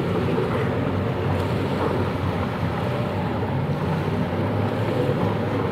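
Engines of several racing jet skis running at speed across the water, a steady continuous drone, with wind buffeting the microphone.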